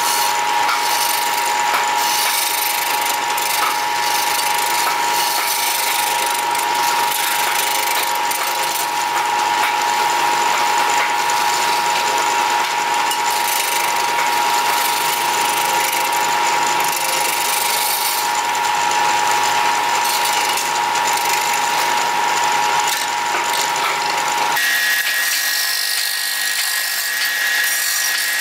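Wood lathe running with a hand-held gouge cutting and scraping the inside of a spinning wooden blank, a continuous hiss of cutting over the lathe's steady whine. Near the end the whine steps up to a higher pitch.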